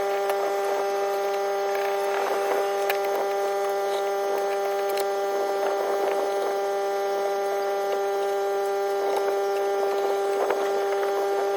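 A steady machine hum with a fixed pitch, like a small electric motor or power tool running, with faint scattered clicks. It cuts off suddenly right at the end.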